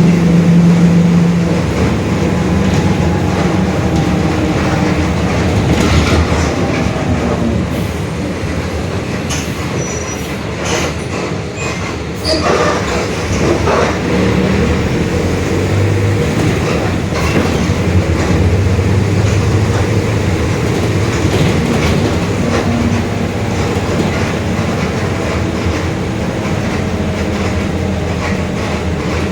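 Mercedes-Benz OF-1721 BlueTec 5 bus chassis under way: the diesel engine running with the differential growling, and a faint whine over it. A few sharp knocks come around twelve seconds in.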